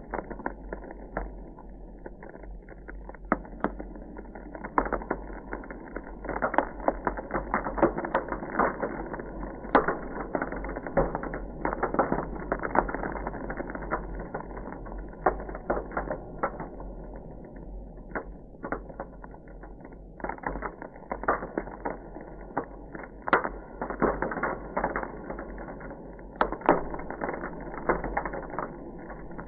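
Ice crackling: a dense, irregular run of small sharp cracks and pops, thickest around the middle and again near the end, over a low steady hum.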